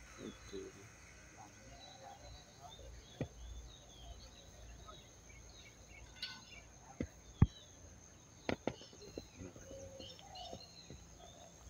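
Small birds chirping and twittering in the background over a steady high-pitched whine, with a few sharp knocks or taps, the loudest about seven and a half seconds in.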